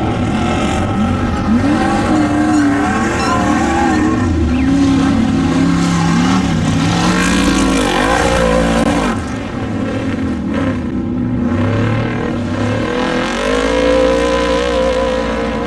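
Engines of off-road desert race vehicles running hard, their pitch rising and falling as they accelerate and back off. A louder rush of noise comes around the middle as one goes by.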